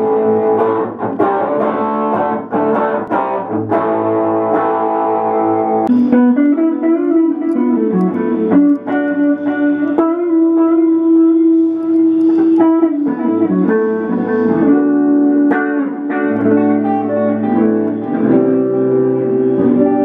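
Electric guitar, a cream single-cut, played through an effects pedalboard: full chords for the first six seconds, then a single-note melody with one long held note in the middle.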